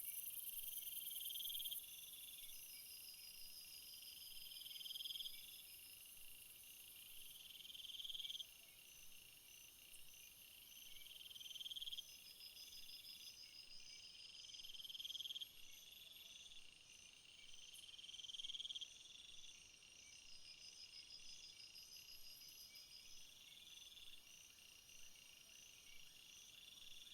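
Summer field insects chirping and trilling faintly, several at once. One high call swells over about three seconds and stops abruptly, repeating every few seconds over steadier, higher trills.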